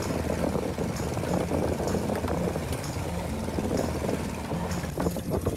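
Skiff's engine running steadily with the boat under way, water churning along the hull.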